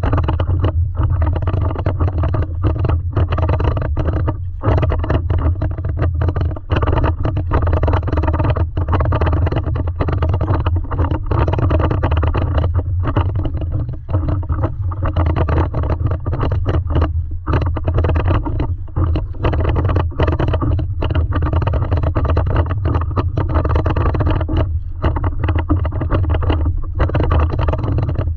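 Wind rumbling steadily on a camera microphone at the deck of a stand-up paddleboard, mixed with water sloshing against the board.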